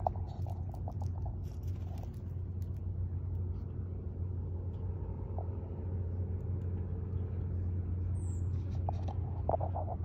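Steady low rumble, with a few light clicks near the start and end and one short, high, falling chirp a little after eight seconds.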